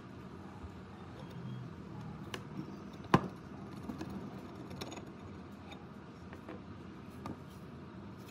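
A rusty hacksaw frame being handled and taken apart on a wooden bench: scattered light metal clicks and knocks. One sharp, loud click comes about three seconds in.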